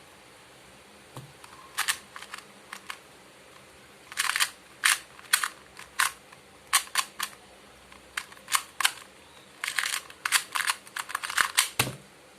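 A 2x2 Rubik's cube being turned fast during a speedsolve: irregular runs of sharp plastic clicks and clacks that begin about two seconds in and stop just before the end.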